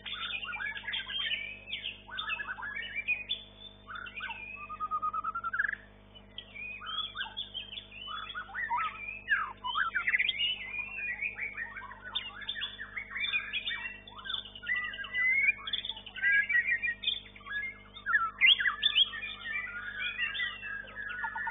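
White-rumped shama (murai batu) singing a long, varied song of quick whistles, slurred notes and trills, pausing briefly about six seconds in.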